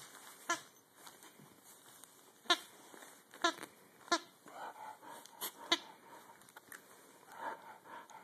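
A plush dog squeaker toy squeaking in about six short, sharp squeaks, spaced irregularly, as a dachshund puppy bites and chews it.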